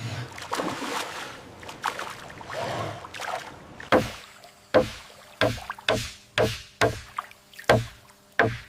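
A run of sharp knocks on bamboo, about one to two a second, beginning about four seconds in, over a faint steady hum; before them, softer rustling.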